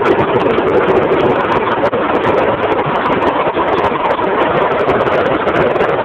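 Yamaha KT100 two-stroke kart engine running, loud and steady, its speed not changing.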